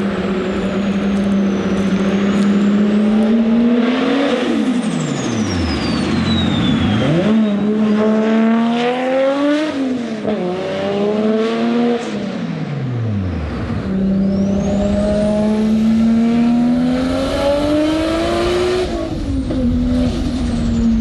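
A single-turbo RB26 straight-six in a Nissan Skyline R32 GT-R, running a straight-pipe exhaust, revving hard through several pulls. Each time the pitch climbs under throttle, then drops away sharply as the throttle closes. A high whistle falls in pitch after the first lift-off.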